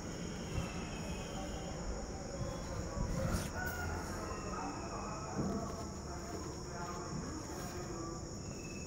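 Insects trilling steadily at a high pitch, over a low rumbling noise with a few faint knocks.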